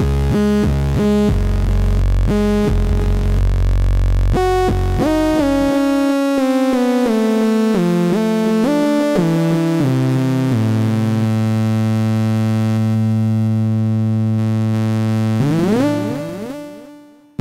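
Ensoniq ASR-10 sampler playing a bright, sharp sawtooth-style waveform through a delay effect: a low bass passage, then a run of changing notes and one long held note. Near the end a quick upward glide, after which the sound fades out in echoes.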